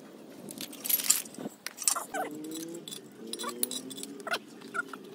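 Metal clinks and clanks of tools and engine parts being handled, with the loudest clank about a second in. A low steady hum joins about two seconds in.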